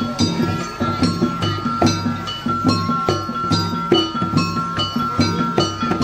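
Traditional Banjar music ensemble playing for the Tuping Burung masked dance: drums keep a steady beat under ringing struck metal notes, with a gong among them.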